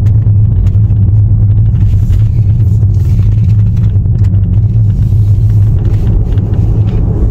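Car interior noise while driving: a steady low rumble of engine and road.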